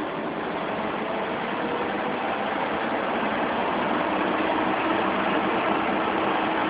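Car engine running, heard from inside the car, with a steady rushing noise that grows gradually louder.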